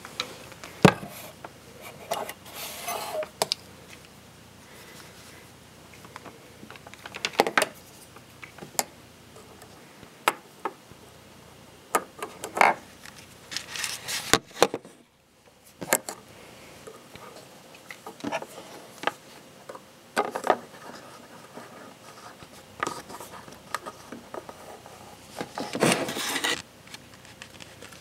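Handling sounds on a wooden desk: scattered clicks, knocks and rubbing as wires, a small circuit board and a multimeter are moved about. The sound drops out briefly about halfway through.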